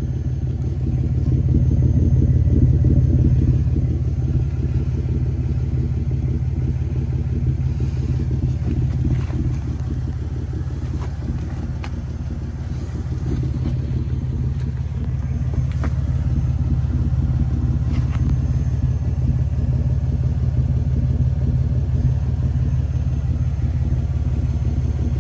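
Toyota 3.4 L V6 (5VZ-FE) idling steadily at about 800–900 RPM, fully warmed up, heard at the tailpipe through a Flowmaster FX stainless muffler with 2.25-inch inlet and outlet.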